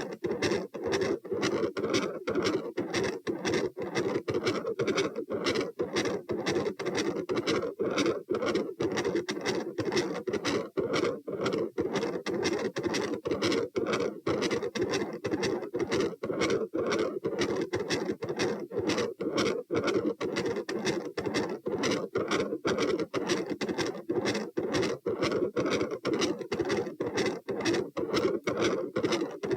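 Heart sounds heard through a stethoscope: a continuous machinery murmur with no separate S1 and S2 beats. It is focused over S2 and consistent with a patent ductus arteriosus, though the uploader notes it could also be an aortopulmonary window or a collateral vessel.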